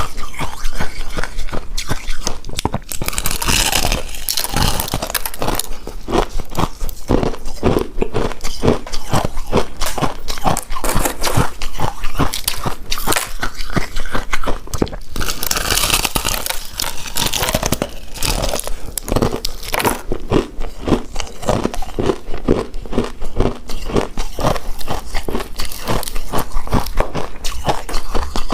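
Close-miked chewing of a chewy rice cake coated in shredded coconut: a rapid stream of sticky, wet mouth clicks, with two louder, noisier bites about three seconds in and again around fifteen seconds.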